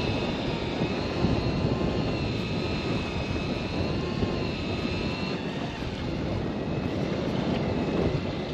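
Piscifun Kraken deep-drop reel winding in line under load with a steady motor whine that wavers slightly in pitch, over wind and sea noise.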